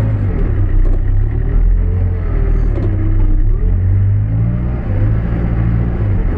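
Diesel engine of a New Holland B95B backhoe loader running under load as the front loader arms are raised and lowered, its pitch rising and falling with the throttle.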